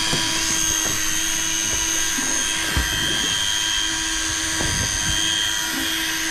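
Daiwa Tanacom 1000 electric fishing reel's motor whining steadily, a high whine that swells and eases a little as it winds line in under heavy load from a big fish on the line.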